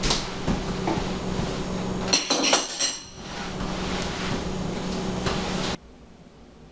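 A towel wiping spilled milk off a kitchen table, with ceramic dishes and a spoon clinking together in a short cluster about two seconds in, over a steady low hum. It all stops abruptly near the end.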